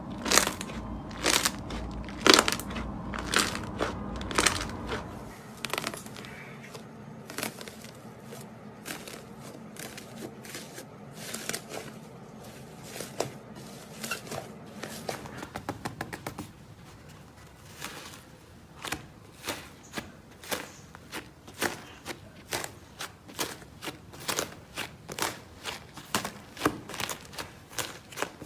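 Slime being squeezed and poked by hand, giving many sharp clicks and pops. Later on, the pops come fairly regularly, about two a second.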